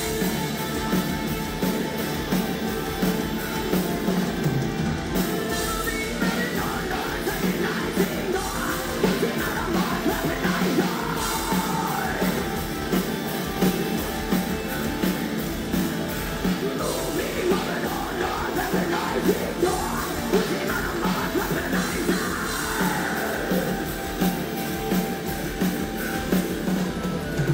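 Metal band playing live, heard from the audience: distorted guitars, bass and drums with a singer's vocals over them.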